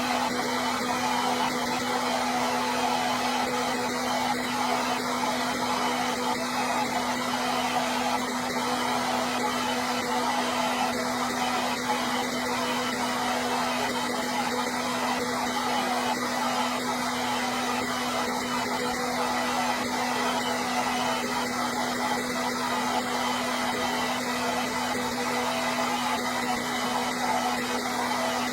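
Electric hair dryer running steadily: an even rush of blown air over a constant low motor hum, with no change in speed.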